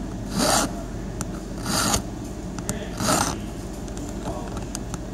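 Flat hand file scraping across the tip of a metal JMA Tibbe key blank, three strokes about a second and a half apart, filing a master bevel onto a valet blank.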